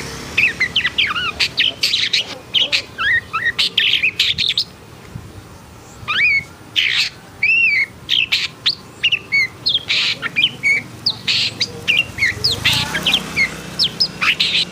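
Long-tailed shrike (pentet) singing in an agitated, fired-up state: a rapid, varied string of sharp chirps and short whistled glides, breaking off briefly about five seconds in before carrying on.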